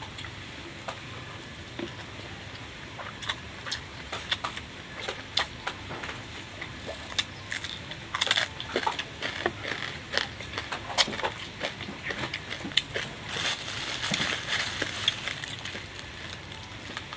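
A person chewing and crunching food close to the microphone: irregular crunches and wet mouth clicks, coming thicker in the middle and again towards the end.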